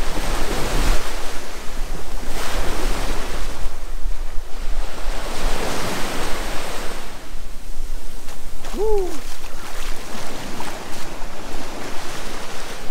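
Small sea waves breaking and washing up on a sandy beach, the wash rising and falling every few seconds, with wind rumbling on the microphone.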